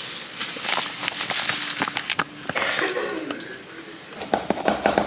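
Fish fry mix poured from a crinkly bag into a plastic food-storage canister, a rustling hiss with scattered clicks, then a quick run of clicks near the end as the canister's pop-up seal lid is handled.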